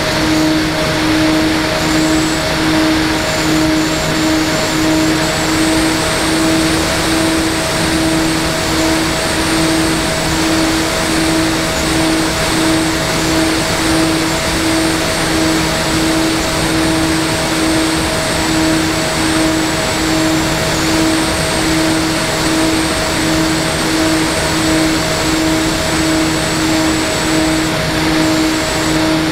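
Electric motors and propellers of an FPV model aircraft running steadily in flight: a constant drone with an even, pulsing beat about twice a second, a thin high motor whine and a rushing noise over it.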